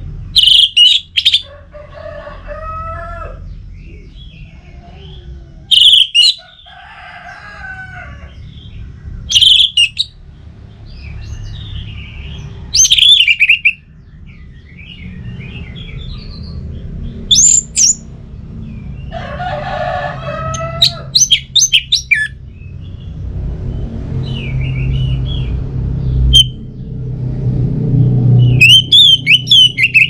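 Orange-headed thrush singing: short, loud bursts of fast, high whistled phrases every few seconds, with quieter chattering notes in between, over a low background rumble.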